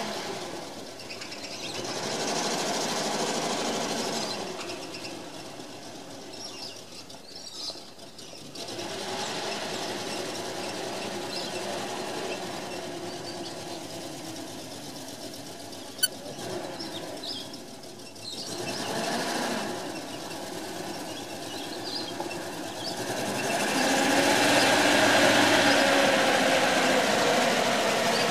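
Six-cylinder petrol engine of a 1965 Bedford J5L tip truck running as the truck drives slowly closer, the engine note rising and falling several times and growing loudest near the end. The owner thinks the engine is missing on one cylinder, from a sticky valve or a faulty spark plug lead. A single sharp click sounds about halfway through.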